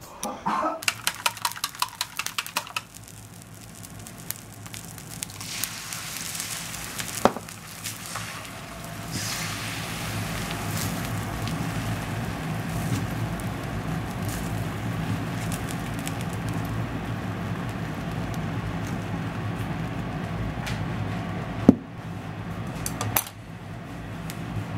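Quick clinks and clicks of kitchen utensils in the first few seconds, then beaten egg sizzling steadily in an iron wok from about nine seconds in, over a low hum, with a few sharp knocks of utensil on pan.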